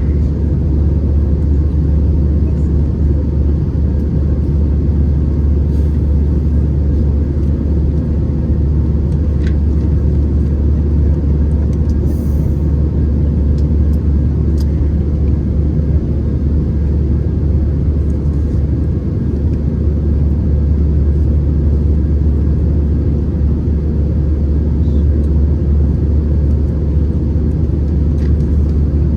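Steady low drone inside the cabin of an Airbus A319-111 in flight: the CFM56 engines and airflow over the fuselage, heard from a window seat.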